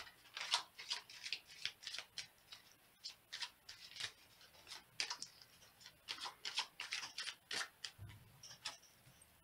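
Romance Angels oracle cards being shuffled by hand: quick, crisp card snaps and rustles, several a second, in irregular flurries with short pauses.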